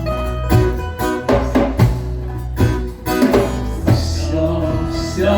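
Live band music with no vocal: guitar playing over a strong bass line, marked by regular percussive hits.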